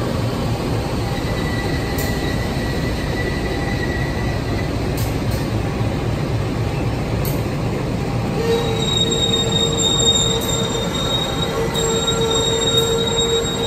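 A slow-moving train of 205 series commuter cars hauled by a diesel locomotive, rumbling steadily with scattered clicks from the wheels. From about two thirds of the way in, a steady high-pitched wheel squeal sets in and holds.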